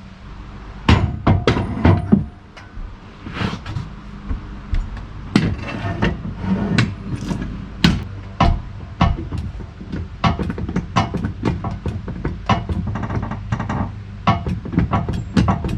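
A jack being pumped to lift a log on a sawmill: metal clanks and clicks from the jack handle. A few irregular knocks come first, then an even run of about two strokes a second.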